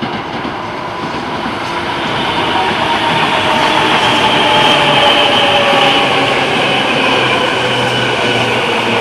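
Tobu Railway stainless commuter train running past, growing louder as it approaches, with a motor whine that slides slowly down in pitch over the wheel and rail noise.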